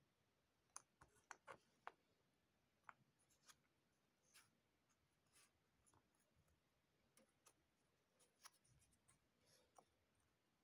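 Faint clicks and taps of cardboard jigsaw puzzle pieces being picked up, handled and set down, a quick cluster about a second in, then scattered ones.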